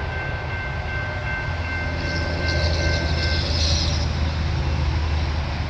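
Low, steady rumble of an approaching Norfolk Southern diesel locomotive leading a loaded coke train, growing louder about a second and a half in. A faint high steady tone fades out about three seconds in.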